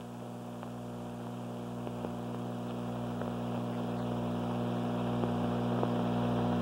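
Steady electrical hum with scattered faint crackles from an old 16mm film soundtrack played on a projector, slowly growing louder.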